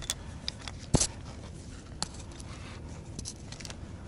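Metal climbing gear clicking as it is handled to anchor into a piton: a few sharp clicks, the loudest about a second in and another about two seconds in, over low handling noise.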